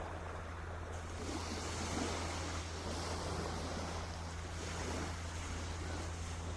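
Sea waves washing on the shore, the surf swelling about a second in and again near five seconds, over a steady low hum.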